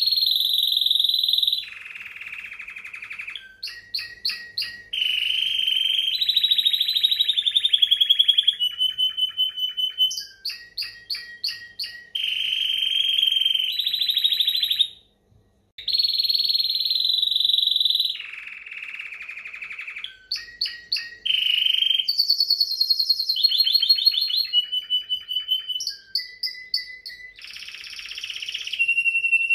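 Timbrado canary singing a long continuous song of rapid trills, rolls and repeated notes, changing phrase every second or two, with one brief pause about halfway through.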